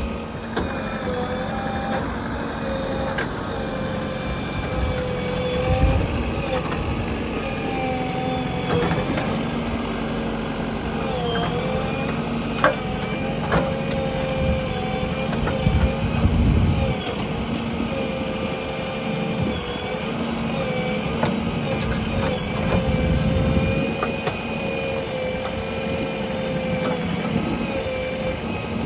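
JCB 3DX backhoe loader's diesel engine running steadily while digging, its low note swelling several times as the machine works under load. A few sharp knocks sound midway.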